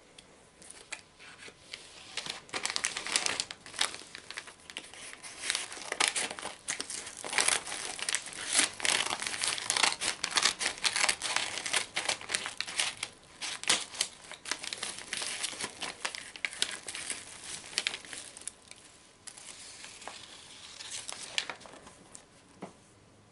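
A mailing envelope crinkling and rustling as it is handled, cut open with scissors and torn, in a dense, irregular run of crackles and snips that thins out near the end.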